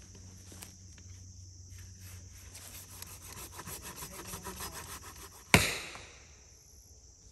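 Folding pull saw cutting into a dead, partly hollow tree trunk with rhythmic back-and-forth strokes that grow louder about halfway in. A single sharp knock with a ringing tail near the end.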